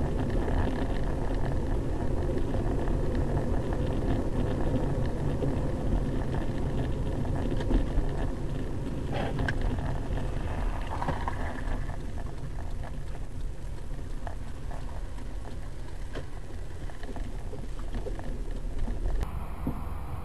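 Steady road and engine noise inside a moving car, heard through a dashcam's microphone. The noise changes abruptly near the end, where the recording switches to another car.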